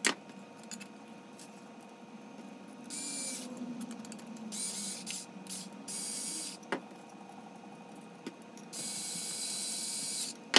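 Cordless electric screwdriver running in several short bursts, driving small machine screws into 3D-printed plastic planks, with the longest burst in the last two seconds. Sharp knocks of plastic parts being handled come at the start, about two-thirds of the way through, and loudest right at the end.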